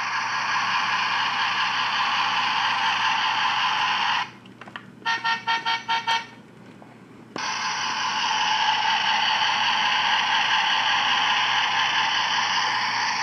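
Toy bus's built-in sound effects through its small speaker: a steady hissy electronic noise, broken about four seconds in by a quick run of about six short horn beeps. A few seconds later the steady noise starts again.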